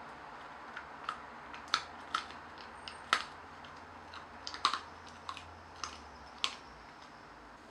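A dog crunching a hard baked pumpkin-curl dog biscuit: about a dozen sharp, irregular crunches over some five seconds, stopping a little before the end.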